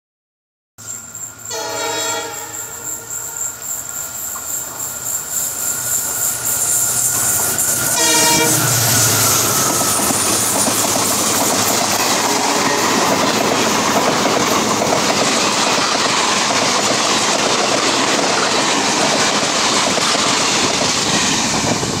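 EMD WDG4 diesel locomotive sounding its sharp twin-tone horn in two short blasts as it approaches at speed, the first about a second and a half in and the second about eight seconds in. The train grows louder, and then its coaches rush past steadily with wheels clacking over the rails.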